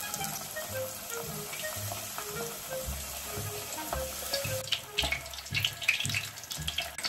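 Tempura frying in a pot of hot oil: a steady sizzle, with crackling spatters growing more frequent about four and a half seconds in as battered pieces go into the oil. Soft background music with a light beat plays underneath.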